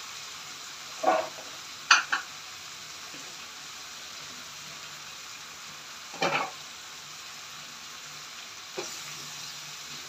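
Masala and oil sizzling steadily in a wok under a heap of freshly added sliced ridge gourd (tori). A few short knocks break through, the loudest about two seconds and six seconds in.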